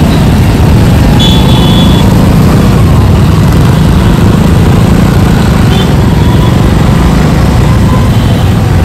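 Loud, steady rumble of wind and road noise while riding a motor scooter.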